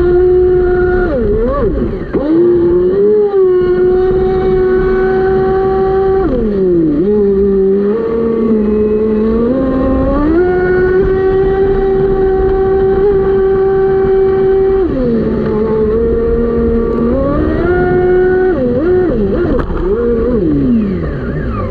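Electric motor of a 6S LiPo-powered Inception RC speed boat running, with water rushing and splashing against the hull, heard from a camera on its deck. The motor's whine follows the throttle: it drops in pitch for a couple of seconds at a time twice, climbs back each time, and glides down near the end as the boat slows.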